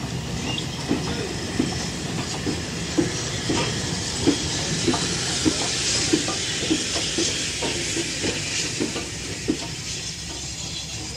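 Two steam locomotives, a BR Standard Class 4MT 2-6-4 tank and an Ivatt Class 4MT 2-6-0, moving slowly as they set back onto their train. A hiss of steam swells towards the middle, over a run of short clicks and clanks from the running gear and rails, about two a second.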